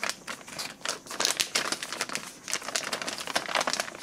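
Plastic flameless ration heater (FRH) sleeve and the MRE entrée pouch inside it crinkling and crackling as the pouch is pushed down into the sleeve: a steady run of irregular crackles.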